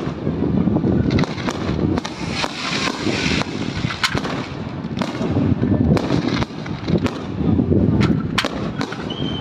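Fireworks going off: a quick series of sharp bangs and crackles over a continuous low booming.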